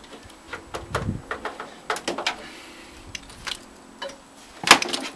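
Scattered clicks and knocks of a screwdriver and the plastic back casing of a CRT television as the casing is handled and screwed back on, with one louder knock near the end.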